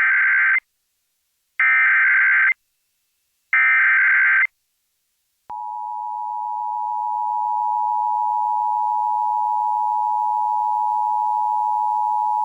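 Emergency Alert System tones, announcing an immediate evacuation order. Three SAME header data bursts, each about a second long, sound in quick succession. About five and a half seconds in, the steady two-tone attention signal starts, swells slightly over its first couple of seconds and then holds.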